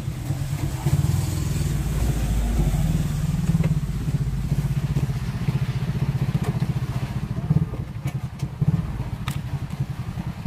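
Small motorcycle engine running at idle close by, a steady low pulsing that swells briefly about a second in. A few sharp clicks near the end.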